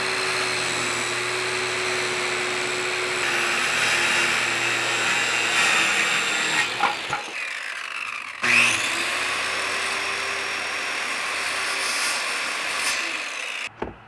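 Circular saw cutting through plywood, a steady motor whine over the noise of the blade in the wood. About seven seconds in it drops off briefly, then spins back up with a rising whine and cuts again until it stops just before the end.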